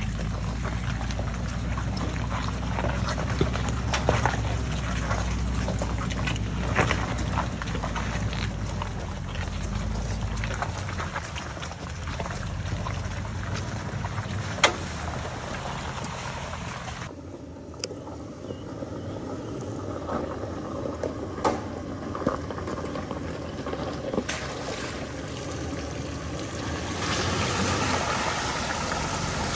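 Off-road 4x4's engine running at low speed on a rocky trail, with scattered sharp knocks and clunks. About two-thirds of the way through, the low rumble drops away abruptly and a thinner, noisier sound takes over.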